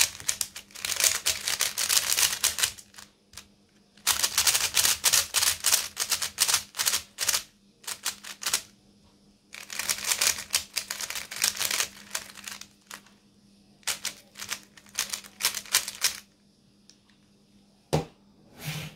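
Plastic 3x3 speed cube being turned fast, its layers clattering in rapid runs of clicks, in four bursts with short pauses between them. A single knock sounds near the end.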